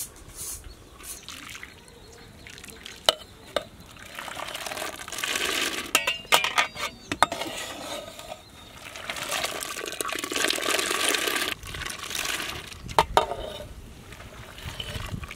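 Macaroni in water being stirred with a perforated metal skimmer in a large metal pot: the water sloshes and splashes in several stretches, with sharp clinks of the skimmer against the pot several times.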